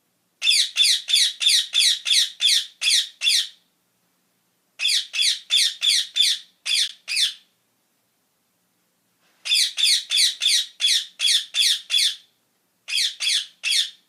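Rose-ringed parakeet giving shrill, harsh screeching calls, about three a second, in four runs with pauses between them. Each call slides slightly down in pitch.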